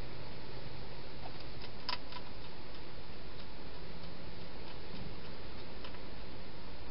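A wild hedgehog eating, heard as a few faint sharp clicks over a steady hiss; the sharpest click comes about two seconds in.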